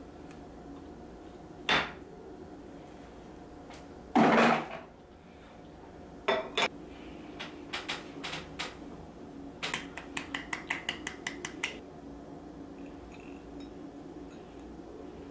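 Tableware being handled around a mug: a sharp knock, a louder clatter about four seconds in, then runs of quick, light clinks, about six a second, of a metal spoon against a ceramic mug.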